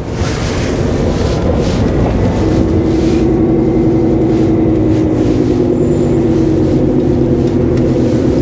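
HGV lorry's diesel engine running under way, heard from inside the cab as a steady drone that grows stronger about two and a half seconds in.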